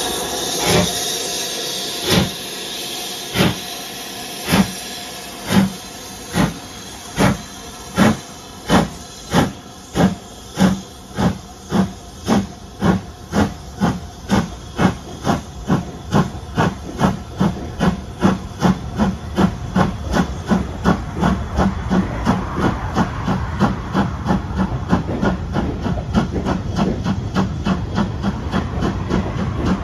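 BR Standard Class 5 4-6-0 steam locomotive pulling away from a station with its train. The exhaust chuffs start about a second apart and quicken steadily to several a second as it gathers speed. The rumble of the coaches rolling by grows under the beats toward the end.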